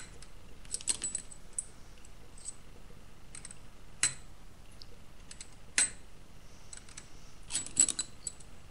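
Long steel nails clinking against each other as they are picked out of a cardboard box and set down on a table: scattered sharp metallic clicks, with a quick cluster of clinks near the end.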